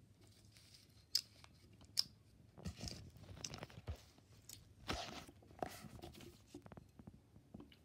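Crunchy chewing and biting: two sharp clicks, then a few seconds of irregular crunching.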